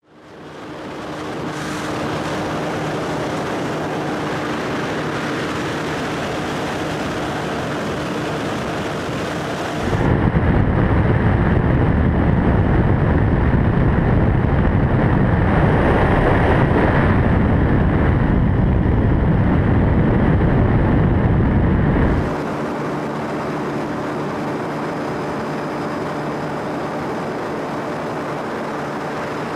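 Ultralight trike's engine running steadily in flight, a constant hum with wind over the microphone. About ten seconds in, a louder wind rush buffeting the microphone takes over for some twelve seconds, then the steady engine hum returns.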